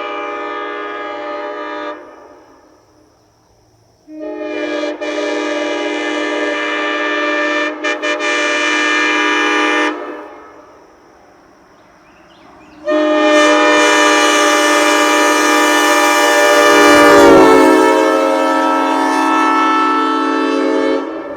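Nathan Airchime M5R24 five-chime air horn (scalloped base, ex-Western Pacific) blowing its chord in long blasts: the end of one, then a blast of about six seconds, then a louder one of about eight seconds whose chord sags briefly in pitch midway.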